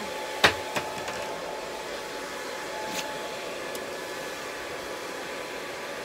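Handheld hair dryer blowing steadily, a steady rush of air with a faint motor whine. One sharp click about half a second in, with a few fainter ticks later.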